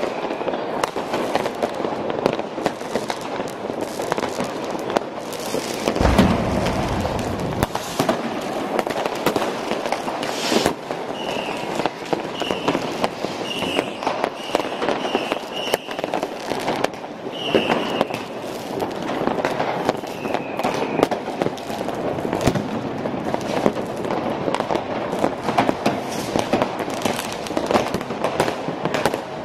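Fireworks and firecrackers going off nonstop, many at once, a dense crackle of bangs and pops. A heavy deep boom lands about six seconds in and another sharp bang about ten seconds in, with a string of short high whistles in the middle.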